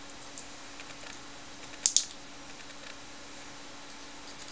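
Small plastic clicks as a TRS-80 Model III keyboard key switch is fitted back together by hand, with two sharp clicks close together about two seconds in as the parts snap into place.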